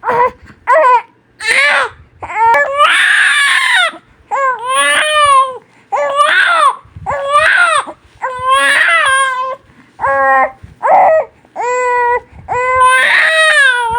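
Newborn baby crying hard: a run of about ten loud wails, each half a second to a second and a half long and falling in pitch, with short gasps for breath in between.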